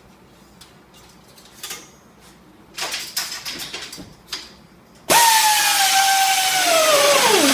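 Handling clicks and knocks, then a pneumatic steel-strap tensioner's air motor starts with a loud hiss and a whine. The whine holds, then drops sharply in pitch near the end as the motor slows under load while the strap draws tight.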